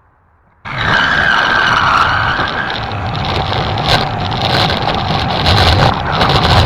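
Power saw cutting through the boat's plywood deck, starting abruptly about half a second in and running steadily at full power.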